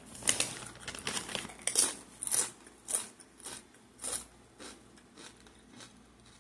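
Nacho cheese tortilla chip being bitten and chewed: a run of sharp crunches about two a second, growing fainter toward the end as the chip breaks down.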